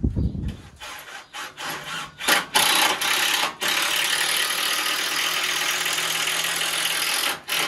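A thump, then a handheld power tool working the timber of a truck deck: a few short stop-start bursts, then about five seconds of steady running before it stops.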